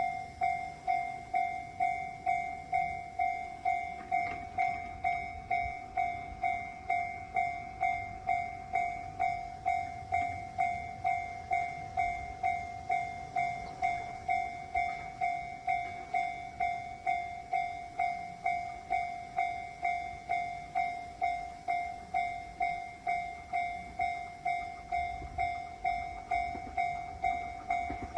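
Japanese railroad crossing alarm bell ringing 'kan-kan' in a steady, even rhythm of about two strikes a second, each strike one clear ringing tone that fades quickly: the warning that a train is approaching.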